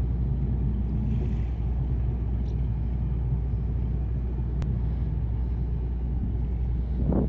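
Steady low rumble of the passenger ship MS Helgoland's engines as it pulls away from the quay, with a gust of wind on the microphone near the end.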